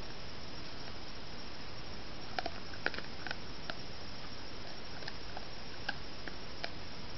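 Steady hiss from a trail camera's microphone, with scattered faint clicks and rustles as a small animal roots about in dry leaf litter. The clicks bunch together between about two and a half and four seconds in, and a few more follow later.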